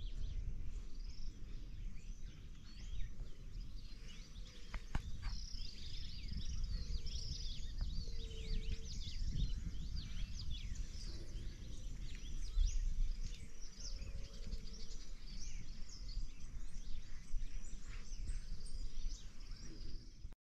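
Many birds chirping and calling at once in a steady chorus, with wind rumbling on the microphone underneath.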